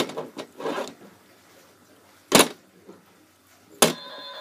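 Plastic wrestling action figures knocked down onto a toy ring's mat: three sharp knocks, at the start, about halfway and near the end. A faint steady tone comes in near the end.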